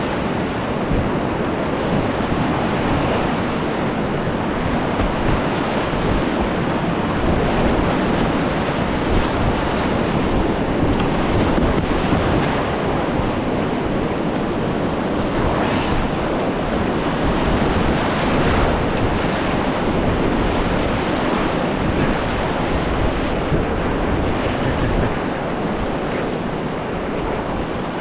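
Loud, steady rush of whitewater heard from a kayak in the middle of a long boulder rapid running at about 1450 cfs, with low buffeting on the microphone underneath.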